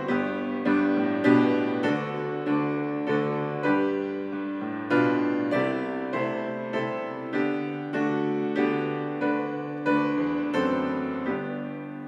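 Piano playing a slow, gentle hymn accompaniment, with notes and chords struck about once or twice a second and each left to fade.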